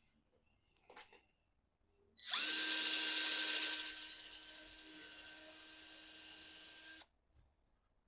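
Power drill boring a small pilot hole into the wooden nunchaku stick for a wood screw. The motor whine starts about two seconds in, is loudest for the first second and a half, then settles quieter and steady for a few seconds before cutting off.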